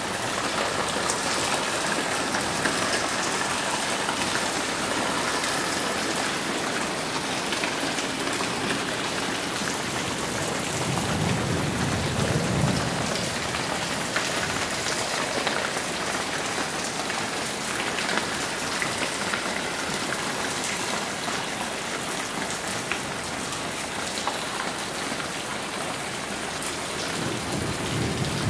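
Heavy rain falling steadily. A low rumble of thunder swells about eleven seconds in and builds again near the end.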